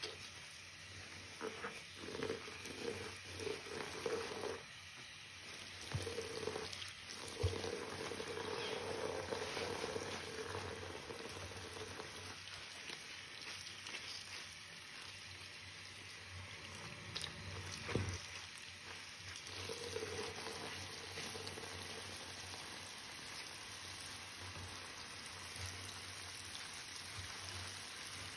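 Tap water running into a sink while gloved hands squeeze and rinse a soapy sponge: wet squishes and the crackle of suds over the steady stream. The squeezes come irregularly, most of them in the first ten seconds.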